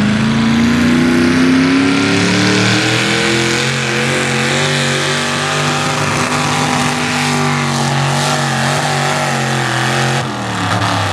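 Hot rod V-8 engine of a modified Farmall pulling tractor at high revs, pulling a weight sled. The pitch climbs over the first few seconds, holds, then falls away near the end as the throttle comes off.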